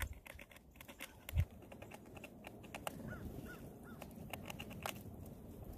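Fox squirrel gnawing and chewing on a packaged food bar: a quick, irregular run of crisp clicks and small crinkles, with a soft thump about a second and a half in. Three faint short bird chirps come around three to four seconds in.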